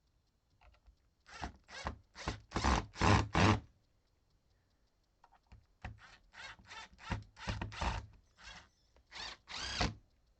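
Short rasping scrapes of a hand tool worked against wood or metal, in two runs: about half a dozen strokes starting a second in, then about a dozen more from about five seconds in, roughly three a second.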